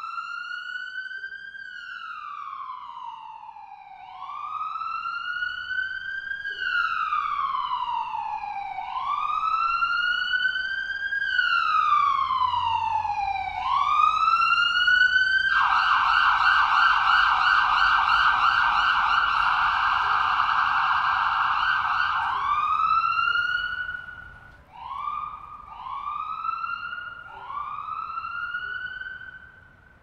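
Ambulance siren. A slow wail rises quickly and falls slowly about every four to five seconds, growing louder. About halfway through it switches to a fast yelp for some seven seconds. It then returns to shorter, quicker rising wails as it fades.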